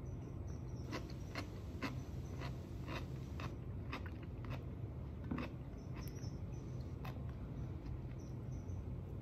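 A person chewing crunchy food close to the microphone: a string of irregular crisp crunches, with no set rhythm, over a steady low hum.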